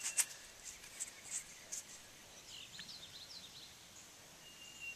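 Quiet field ambience: a few soft scrapes of fingers rubbing dried mud off a stone arrowhead early on. A bird gives a quick run of short falling chirps about halfway through, and a thin steady whistle sounds near the end.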